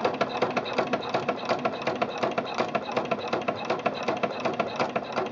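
Singer Quantum Stylist 9960 sewing machine stitching with a ruffler attachment fitted, which pleats the fabric on every stitch: the motor runs steadily under a rapid, even ticking of needle and ruffler.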